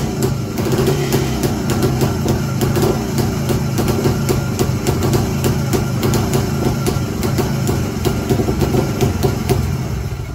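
Jawa 175 motorcycle's single-cylinder two-stroke engine running steadily after starting, cutting off near the end.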